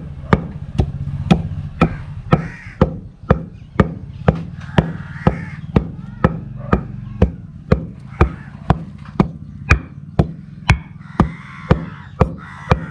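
Pestle pounding dry coconut with chilli powder and salt in a mortar: steady, evenly spaced knocks, about two a second.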